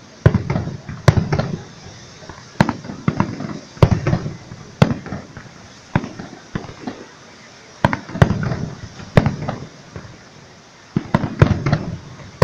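Aerial fireworks shells bursting in a display: about a dozen sharp bangs at uneven intervals, each trailing off in a short low rumble, with brief lulls between clusters.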